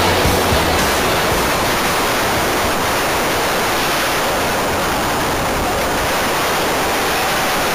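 Steady loud rush of wind and water spray on a camera mounted low on a sailing catamaran's hull as the boat moves fast through choppy water.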